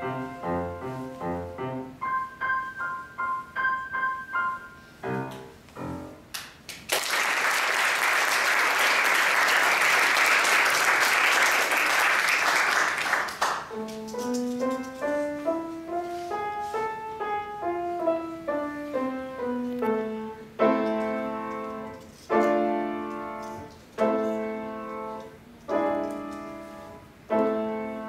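Grand piano played by a young pianist: a piece ends about six seconds in, followed by about six seconds of audience applause. Then a new piece begins on the piano, with runs of notes climbing and falling, leading into chords.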